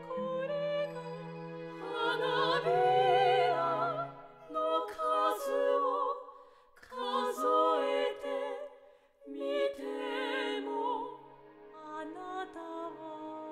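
Operatic vocal ensemble, high soprano voices in harmony, singing a slow lyric with wide vibrato over a sustained low bass line. The phrases swell and break off every few seconds.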